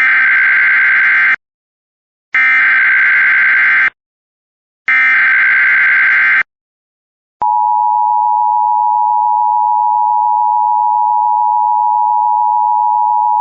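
Emergency Alert System SAME header: three harsh digital data bursts, each about a second and a half long, separated by short silences. They encode an AMBER (child abduction) alert. About seven seconds in, the steady two-tone EAS attention signal begins and holds.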